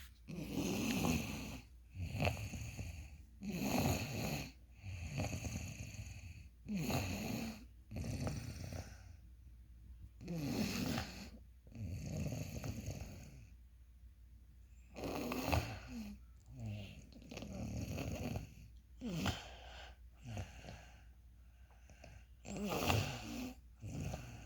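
Snoring: a run of rough, noisy snores every one to two seconds, with a lull of a couple of seconds around the middle.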